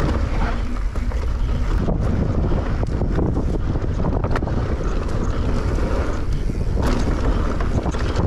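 Mountain bike descending a dry dirt trail at speed: heavy wind buffeting the microphone over the tyres rolling on dirt, with occasional sharp clicks and knocks from the bike rattling over bumps.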